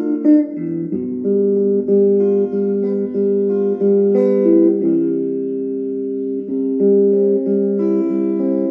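Relaxing instrumental music: plucked string notes, one after another about every half second, each ringing on.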